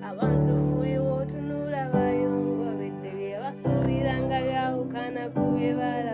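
Background music: sustained chords with a sung melody over them, the chords changing every couple of seconds.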